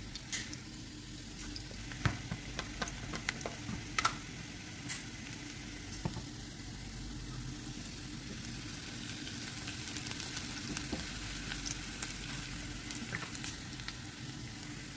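Chopped onions frying in hot oil in a nonstick frying pan: a steady sizzle with scattered sharp pops and crackles.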